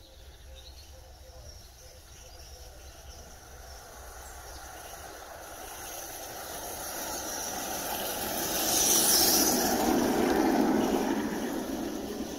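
A 16mm-scale live-steam garden railway locomotive running along the track. It grows louder as it approaches, is loudest about nine to eleven seconds in with a hiss of steam followed by the rumble of wheels on the rails, then fades as it moves away.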